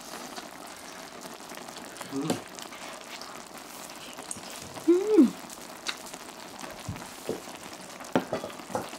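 Budae jjigae simmering on a portable gas burner: a steady bubbling hiss, with a few light clicks of chopsticks and a brief falling vocal sound about five seconds in.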